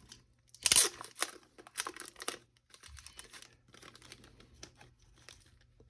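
Packaging and paper crinkling and rustling as an instruction booklet is taken out and handled. There is a loud rustle just under a second in, then quick irregular crinkles, trailing off into softer scattered ones.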